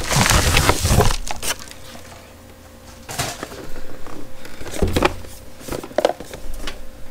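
A padded paper mailer envelope being opened and rustled, dense and loud for about the first second, then scattered crinkles and handling noise as the cardboard box inside is pulled out and turned over.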